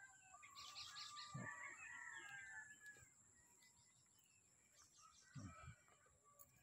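Faint birds chirping and calling, busiest in the first three seconds, over a steady high-pitched whine, with a couple of soft low thumps.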